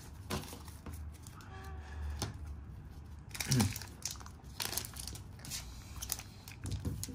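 Foil Pokémon booster-pack wrappers crinkling as they are handled, in several short bursts through the second half, with cards shuffling quietly before that.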